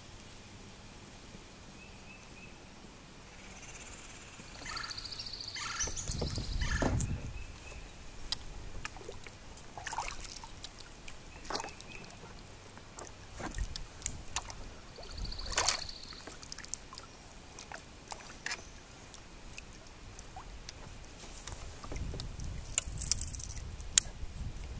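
Paddling a sit-in kayak: the paddle blades splash and drip in the water, with scattered light clicks. Two stretches of heavier splashing come about a quarter of the way in and near the end.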